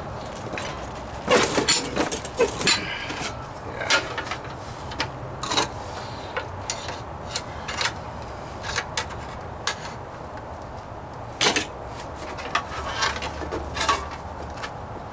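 Hammer striking a steel sheet-metal floor-pan patch, irregular sharp blows of varying force with a few heavier strikes clustered near the start and again about three quarters of the way through; the patch is being hand-formed and flattened against a block in a vise.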